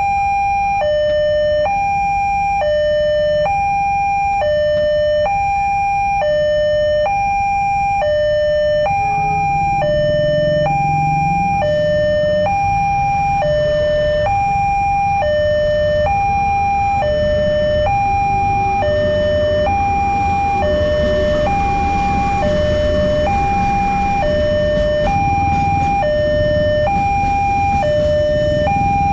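Railway level-crossing warning alarm sounding a steady electronic two-tone chime, high and low alternating about once a second. In the second half the rumble of an oncoming container freight train grows beneath it.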